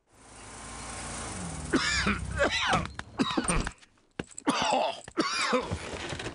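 Cartoon bear character groaning and moaning in sickbed, a run of short wavering, pitch-bending vocal sounds: he is ill with a cough.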